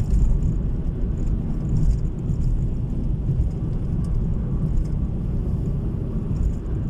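Steady low rumble of a moving car: engine and road noise.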